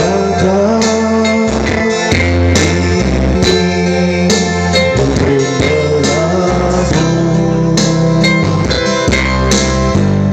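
Instrumental intro of an Indonesian pop song played on an orgen tunggal arranger keyboard: a guitar-like melody over bass and a drum beat, with no singing yet.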